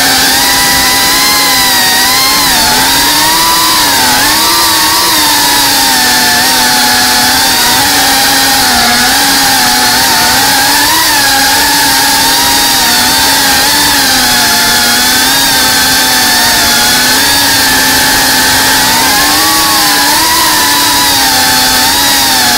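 FPV racing quadcopter's electric motors and propellers whining, heard from the drone itself, the pitch rising and falling constantly as the throttle changes during low flight.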